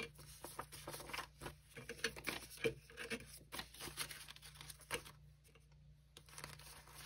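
Canadian polymer banknotes being handled and tucked into a paper cash envelope: faint crinkling and flicking of the plastic bills as a string of short, sharp rustles, with a brief lull about five seconds in.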